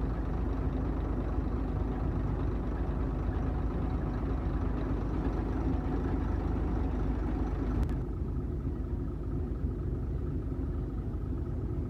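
Farm machine's diesel engine running steadily with a low drone. About 8 seconds in there is a click, and the sound becomes duller after it.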